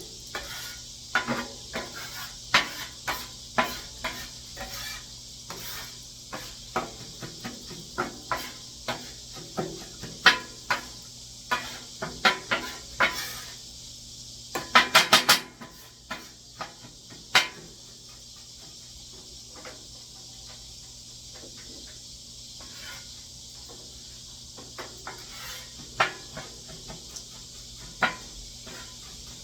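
Metal spatula scraping and clacking on a hot flattop griddle while stirring unpopped popcorn kernels and sugar in oil, over a steady sizzle. The strokes are irregular, with a quick run of clacks about halfway through, and they thin out near the end.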